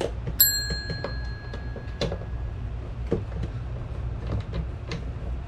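Small hand Phillips screwdriver backing tiny screws out of a metal shade bracket: a sharp metallic clink about half a second in that rings for a second or so, then scattered light clicks and taps of the tool and screws.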